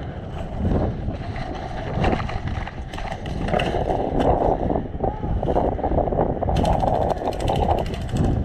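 Wind and movement rumbling on the microphone, with a rapid string of sharp clicks, about ten a second, near the end: an airsoft gun firing full auto.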